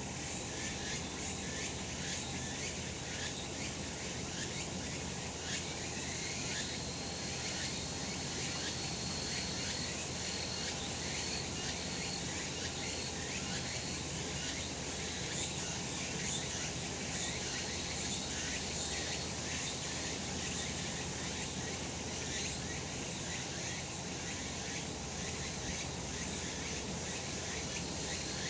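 Cicadas calling in a dense, continuous chorus: a high, shrill buzzing made of many overlapping rapid pulses, at a steady level throughout.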